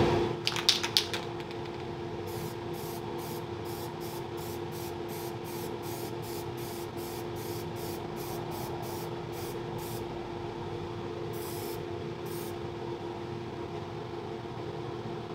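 Aerosol spray-paint can being sprayed in many short bursts, about three a second, then two more a little later, over a steady hum. It opens with a brief rattle like the can's mixing ball being shaken.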